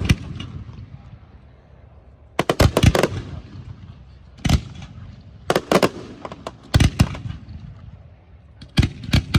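Daytime fireworks firing: clusters of two to four sharp reports in quick succession, a new cluster every one to two seconds.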